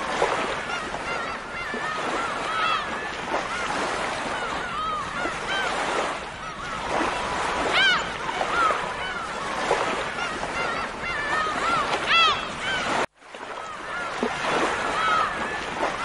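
A flock of gulls calling: many short, arching cries that rise and fall in pitch, overlapping one another over the steady wash of surf. About three seconds before the end the sound cuts out for a moment, then the calls and surf carry on.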